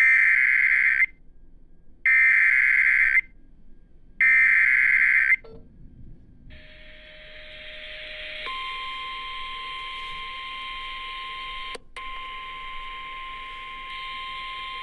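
Emergency Alert System SAME header: three one-second bursts of shrill digital data tones, about two seconds apart. Then, from about eight seconds in, a long steady alert tone over radio hiss, broken briefly near twelve seconds, announcing a severe thunderstorm warning.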